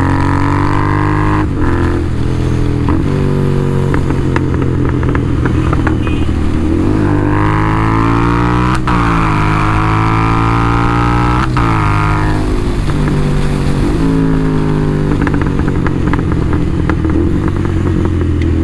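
Royal Enfield Interceptor 650's parallel-twin engine through an SS Motocorp aftermarket exhaust, pulling hard on the road. The note rises and drops again and again as the rider works up and through the gears, with a sharp crack at several of the drops.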